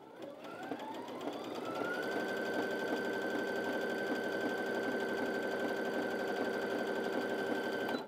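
Brother Innov-is A65 computerised sewing machine sewing a zigzag stitch. Its motor whine rises over the first couple of seconds as it speeds up, then holds steady with rapid needle strokes, and cuts off suddenly just before the end.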